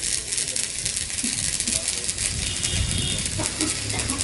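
Stick (arc) welding: the electrode arc crackling and sizzling steadily as a bead is run.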